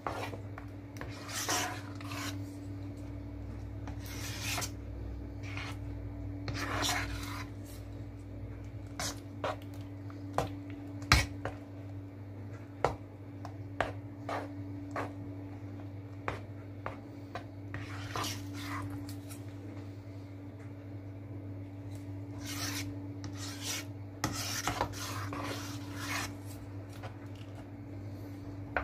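Spatula scraping and stirring thick, sticky cornstarch-and-coconut-milk pudding (maja blanca) around a nonstick pan in irregular strokes, with a sharp click about eleven seconds in; the batter is cooking down and thickening on low heat. A steady low hum runs underneath.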